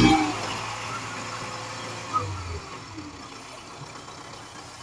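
Kubota tractor's diesel engine running as it sits stuck in the mud, easing off from a loud rev at the start; its low hum drops away about two and a half seconds in, leaving a quieter run.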